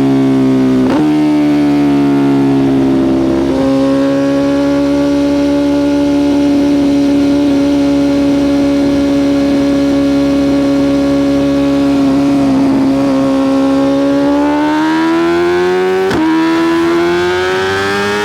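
BMW S1000RR inline-four engine running through a full titanium Spark Grid-O exhaust, holding steady revs for most of the time, then rising in pitch near the end. A few short sharp cracks break the note, after which the pitch drops slightly.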